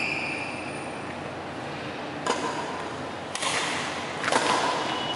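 Badminton racket strikes on a shuttlecock: three sharp hits about a second apart, starting about two seconds in, echoing in a large hall.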